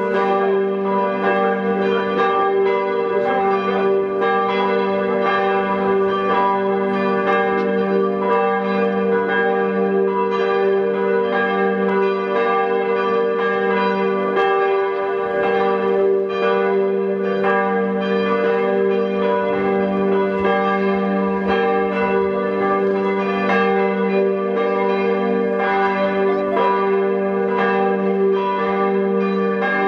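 Church bells of St. Lambertus pealing continuously and very loud, strike after strike overlapping in a steady ringing with a deep hum underneath.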